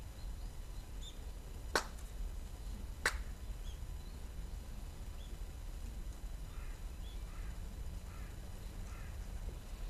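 Two sharp hand claps, about a second and a half apart: the ritual claps (kashiwade) of a Shinto prayer. A steady low rumble runs beneath them.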